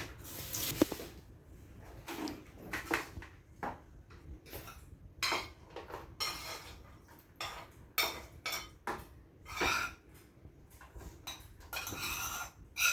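Dishes and cutlery clinking and clattering in short, irregular knocks, as kitchen utensils and containers are handled during food preparation.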